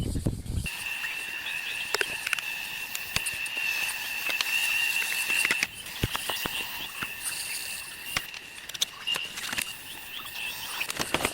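A steady high-pitched chorus of calling insects or frogs, two constant tones, with scattered light clicks and taps over it and a brief low rumble at the start.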